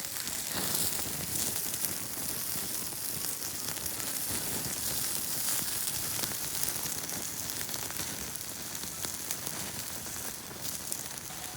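Campfire burning with a steady hiss and a dense crackle of fine pops.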